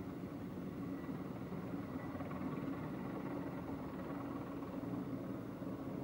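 Sikorsky skycrane heavy-lift helicopter in flight, its twin turboshaft engines and six-blade main rotor giving a steady, distant low drone.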